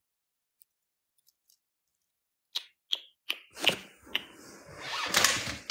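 Handling noise on a phone's microphone as the phone is moved: after a silent start, five sharp clicks about a third of a second apart, then a rubbing, rustling noise that grows louder toward the end.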